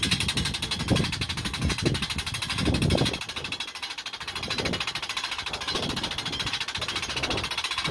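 Steady machine noise with a fast, even pulsing, from machinery running around a parked airliner, with uneven low rumbles underneath.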